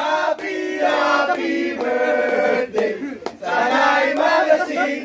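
A group of men singing together loudly in long held notes, with a short break about three seconds in.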